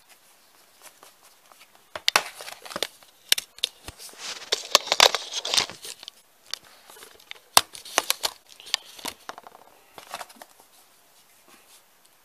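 Plastic wrapping being torn and crumpled off a Blu-ray case: a run of crackling rips and crinkles starting about two seconds in, densest in the middle, thinning out near the end.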